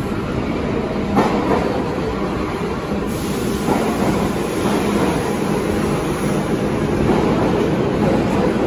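New York City subway train running into the station along the platform: a steady rumble of wheels on rail, with a few faint clacks over the rail joints.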